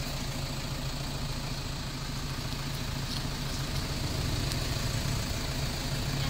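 Steady low hum of an idling engine, even throughout, with a few faint clicks.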